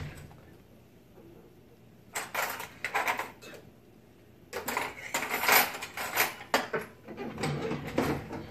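Metal knives and forks clinking against china plates as they are set down, in two spells of clatter after about two quiet seconds.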